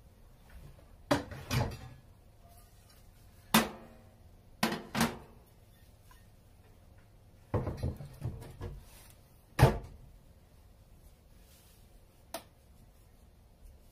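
Kitchen handling sounds: dishes and cookware knocking and clattering as they are taken out and set down on the counter. There are about a dozen separate knocks in irregular clusters, the loudest about ten seconds in, with a last light tap near the end.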